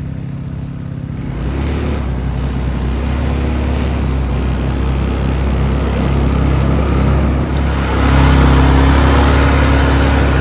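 ATV (quad bike) engine running and pulling away about a second in, then louder again from about eight seconds in as it speeds up.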